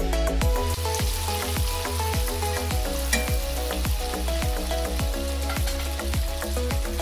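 Chicken pieces frying in hot oil in a pan, sizzling steadily, under background music with a steady beat.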